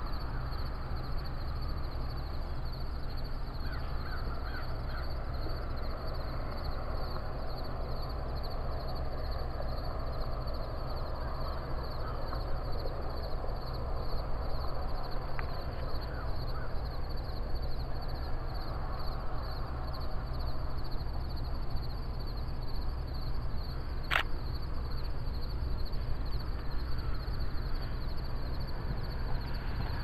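Outdoor dawn ambience: a steady low rumble under a high, evenly pulsing insect chorus, with scattered bird calls. One sharp click sounds about 24 seconds in.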